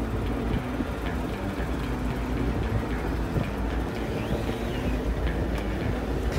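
Boat motor running steadily: a dense low rumble.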